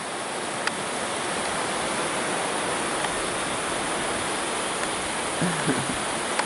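Waterfall rushing steadily: a constant, even hiss of falling water.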